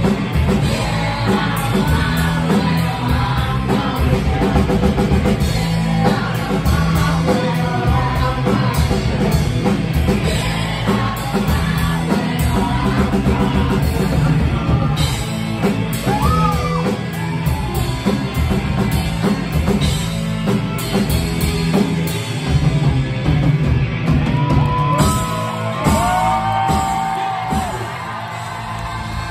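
Live punk rock band playing loud: distorted electric guitars, bass and a pounding drum kit under a woman's shouted singing. The level drops a little near the end.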